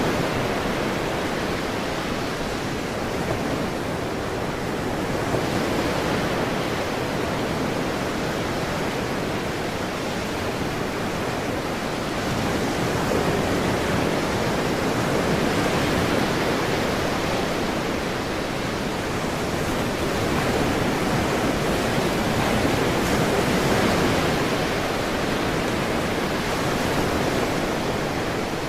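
Ocean surf: a continuous wash of breaking waves, swelling and easing gently every several seconds.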